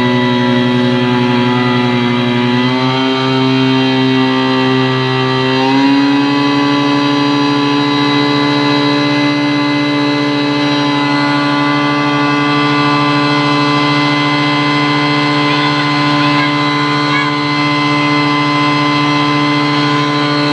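Tohatsu V50 Rabbit portable fire pump engine running on test. Its speed steps up slightly twice in the first six seconds, then holds steady.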